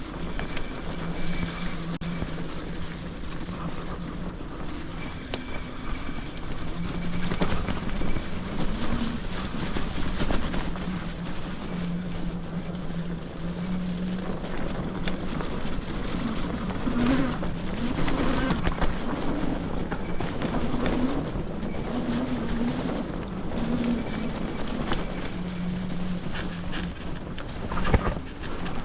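Bafang G62 1000 W electric hub motor whining under a VESC controller while riding: a low hum whose pitch steps up and down with speed, over steady wind and tyre noise. A sharp knock comes just before the end.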